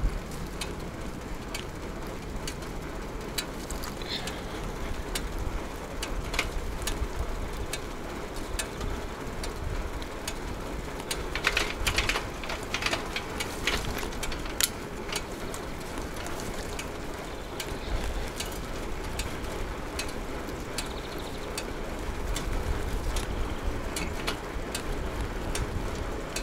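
Bicycle being ridden: a steady rumble of tyres and wind with scattered clicks and rattles from the bike, and a burst of denser rattling about halfway through.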